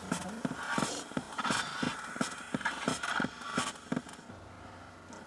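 A run of sharp, irregular clicks and taps, about two or three a second, that stops about four seconds in, leaving a faint steady hum.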